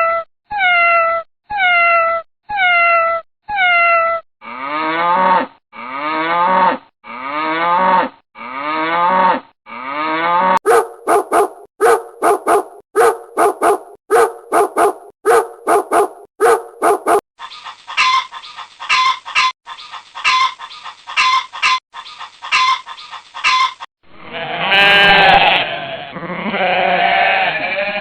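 A string of animal call recordings, each call repeated several times before switching abruptly to the next animal. It opens with a cat's falling meows, and near the end it changes to goat or sheep bleating. In between come longer rising calls, then short quick calls, then rapid clipped calls.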